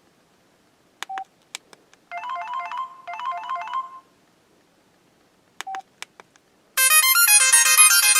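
Samsung Convoy 4 phone: button clicks with a short key beep, then a brief two-note tune played twice. Another key beep and clicks follow, and near the end a loud electronic ringtone melody starts playing.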